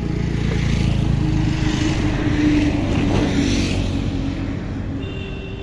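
A motor vehicle passing by on the road, its engine sound swelling to a peak about two and a half seconds in and then fading away.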